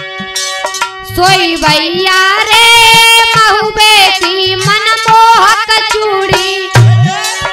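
Holi folk song music: hand-drum beats over a sustained drone, with one long, high, wavering melody line held from about a second in until near the end.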